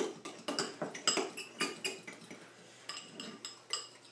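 A utensil stirring a thick filling in a small bowl, clinking repeatedly against the bowl's side with a short ring on each hit. The clinks come quickly at first, thin out past the middle, then return near the end.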